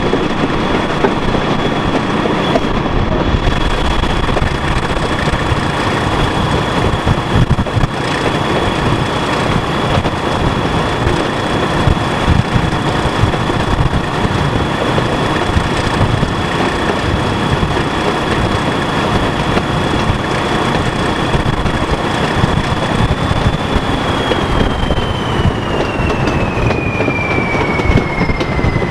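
British Rail Class 14 diesel-hydraulic locomotive running with a train, heard from an open coach window just behind it: a dense, steady mix of engine, wheels on rail and rushing air. A steady high whine carries through it and slides down in pitch over the last few seconds.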